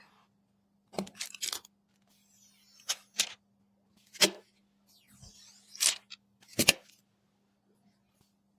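PC parts being handled during a build: a string of sharp clicks and knocks, some in quick pairs or triples, with short stretches of scraping or rustling between them, over a faint steady hum.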